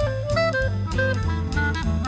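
Traditional New Orleans jazz band playing: a horn carries a melody in short stepping notes over a steady bass line and regular drum kit hits.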